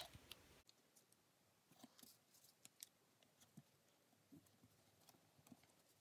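Near silence, with a few faint ticks of paper being handled and folded.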